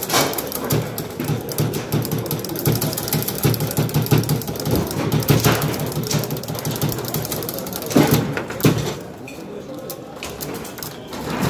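Foosball table in play: steel rods sliding and rattling in their bearings and the figures clicking against the ball. Two sharp hard knocks come about eight seconds in, after which the rattling is quieter.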